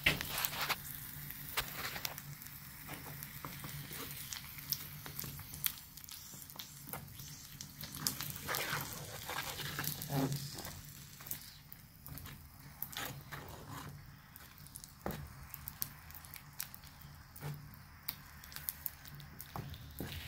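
Molten borax bubbling in a metal pan over a coal forge fire, with irregular crackles, pops and sizzling as its water is driven off on the way to anhydrous borax. A steady low hum runs underneath.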